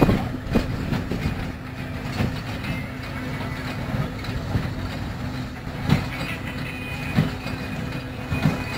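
Threshing machine and Welger baler running together: a steady mechanical drone with sharp knocks now and then, loudest about six seconds in.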